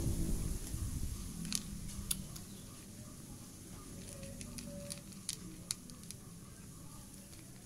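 Cat eating dry kibble from a plastic plate: irregular sharp, crisp crunches and clicks as it chews and picks up pieces, a few of them louder, about a second and a half in, around two seconds and again past five seconds.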